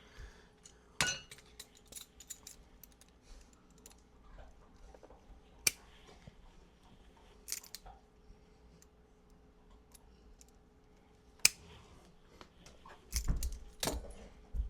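Scattered clicks, light metallic clinks and sharp taps of hand tools and wire terminals being handled while speaker wires are connected to a car amplifier, with a few low bumps near the end.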